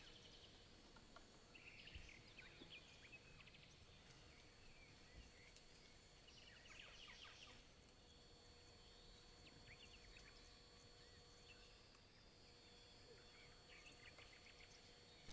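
Near silence: a quiet outdoor hush with faint, scattered bird chirps.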